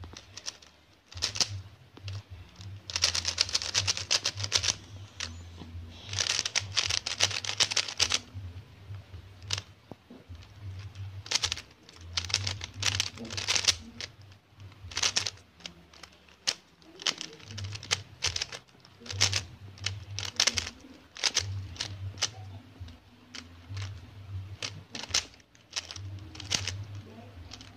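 Plastic 3x3 Rubik's cube being turned fast by hand: bursts of rapid clicking and rattling as the layers snap round, with short pauses between the bursts.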